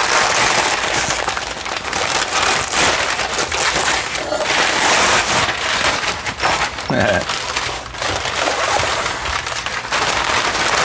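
Loud, continuous crinkling and rustling of packing paper as a parcel is unwrapped by hand.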